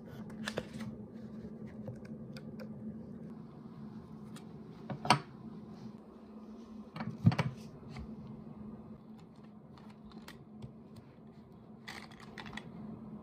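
Small objects being handled and set down on a wooden desk: scattered light clicks and taps, with two louder knocks about five and seven seconds in, and a brief rustle of a fabric pouch near the end, over a faint steady low hum.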